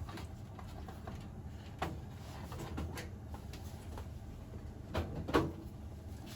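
A few light clicks and knocks of plastic parts as the washing machine's front control panel is handled and fitted into place, two of them close together near the end.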